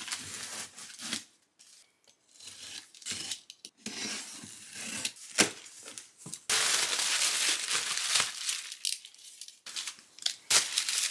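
Packaging being handled and unpacked by hand: irregular crinkling and rustling with sharp clicks and taps, and a denser, continuous stretch of rustling in the middle lasting about three seconds.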